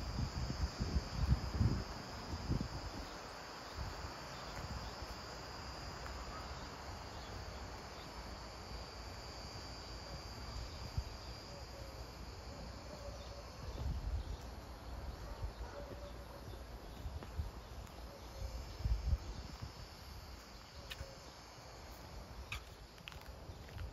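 Insects chirring steadily in a high, even drone, fading after about the halfway point. Low rumbles of wind on the microphone come at the start and twice later.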